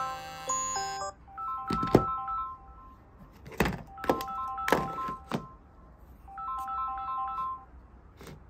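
Smartphone ringtone: a short electronic melody of clear, bright notes played in repeating phrases about every two and a half seconds, with several sharp knocks or taps over it.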